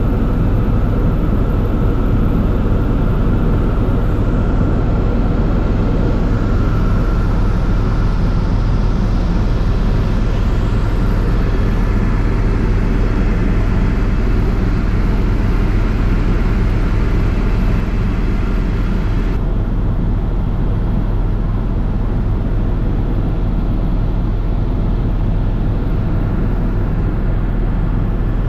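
Helicopter in flight heard from inside the cabin: a loud, steady drone of rotor and engine with a low hum, under a rushing hiss. The hiss drops away abruptly about twenty seconds in.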